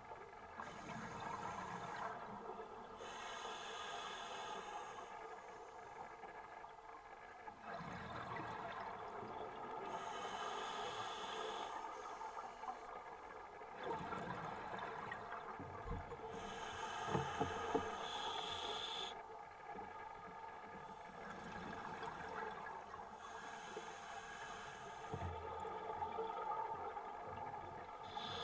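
A scuba diver breathing through a regulator underwater: hissing breaths and bubbly exhalations that swell and fade in a slow cycle every few seconds.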